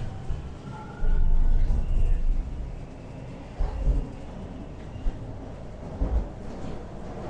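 Toronto TTC subway train running through the tunnel, heard from inside the car: a steady low rumble that swells into heavy low surges a few times.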